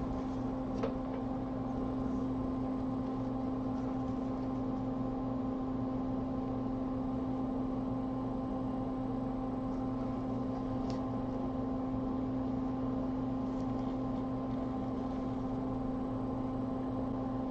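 Steady electrical hum of running repair-bench equipment: one strong low tone with fainter higher tones over a soft hiss, unchanging, with a few faint light ticks.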